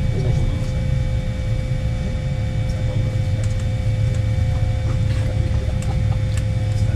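Boeing 787-9 cabin noise on the ground: a steady low rumble with a few steady whining tones over it, and a few faint ticks.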